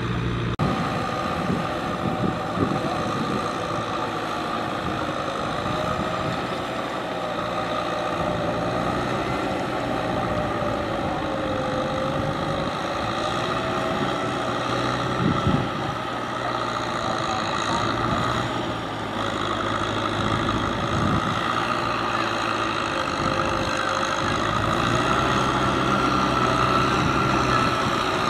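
Farm tractor's diesel engine running steadily under load as it tills a wet field.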